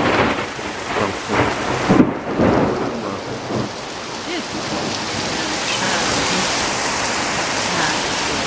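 Heavy downpour hissing steadily, with rumbling thunder in the first half that comes in several loud surges before dying away.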